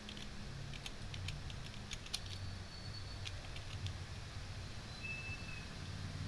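Computer keyboard keys clicking as a short phrase of text is typed, a quick run of clicks mostly in the first half, over a low steady hum.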